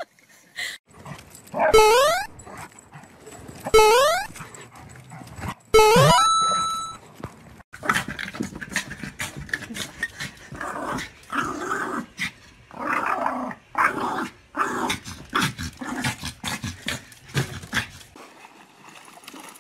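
A small dog barking and growling in quick, irregular bursts at a clothes iron held toward it; the barking stops shortly before the end. In the first six seconds there are three loud sounds, about two seconds apart, that rise sharply in pitch.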